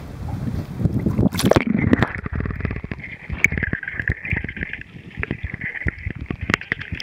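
Wind and water noise from a small boat on open sea. About a second and a half in, it changes abruptly to muffled underwater sound: a steady high whine with many short clicks and knocks.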